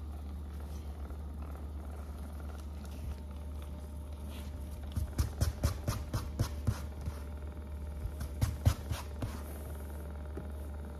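Percussive massage gun running with a steady low buzz as its head works into a dog's belly. From about five to nine seconds in, a run of sharp, irregular clicks and knocks sounds over the buzz.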